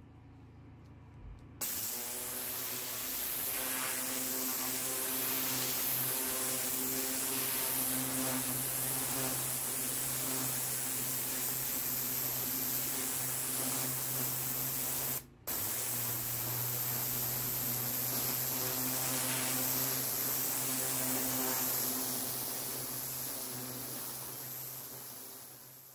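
Pressure-washer lance jetting water onto stone patio slabs: a steady hiss of the spray over a steady hum from the machine. It starts abruptly about two seconds in, breaks off for an instant about halfway through, and fades away near the end.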